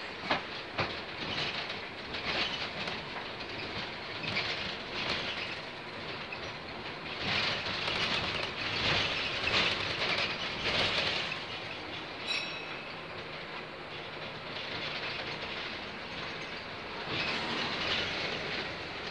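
Inside a moving bus: steady engine and road noise with rattles and knocks from the body and windows, swelling louder a few times. A brief high beep sounds about two-thirds of the way in.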